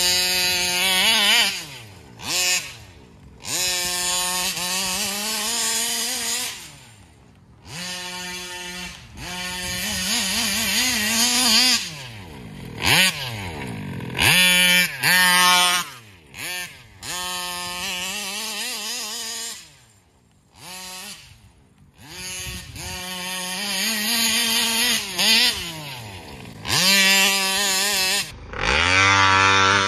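Taylor 35cc case-reed two-stroke engine in a Rocat Hybrid large-scale RC car, revving hard and falling back again and again as the throttle is worked during driving. Its pitch climbs in quick sweeps, with brief dips and one longer lull past the middle.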